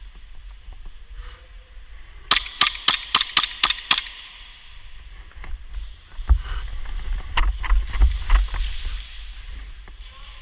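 Airsoft gun firing a quick string of about eight sharp shots, roughly five a second, then a few more single shots later on. A low rumble runs under the later shots.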